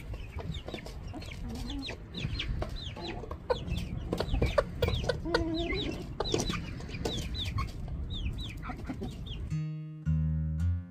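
Chicks peeping with short, falling chirps, many in quick succession, with a few lower clucking calls from a hen among them. About nine and a half seconds in, it cuts to guitar music.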